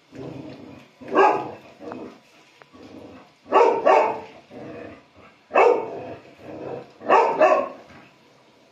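Old dog barking in protest at being showered: six loud barks, some in quick pairs, with quieter sounds in between.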